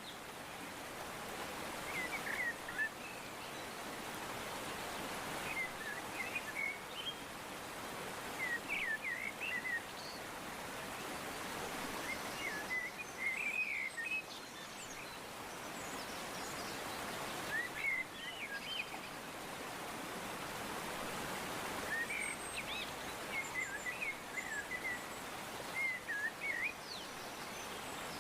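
Birds chirping in short repeated calls over a steady hiss of outdoor ambience.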